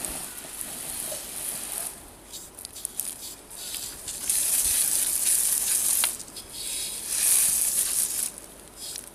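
Small campfire of pine twigs, cones and needles burning, with sharp crackles and surges of hissing and rustling.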